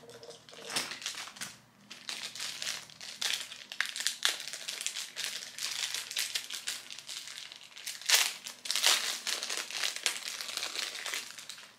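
Thin plastic packaging crinkling and rustling in the hands as a small clear jewelry bag is handled and opened. The crackling is irregular and continues throughout, with a louder burst about eight seconds in.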